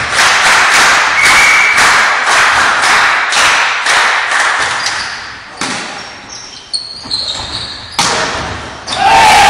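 Volleyball rally in a gym hall: cheering and shouting to a steady beat of about two sharp hits a second, then quieter single ball strikes and a hard spike about eight seconds in, followed by a loud celebratory shout near the end.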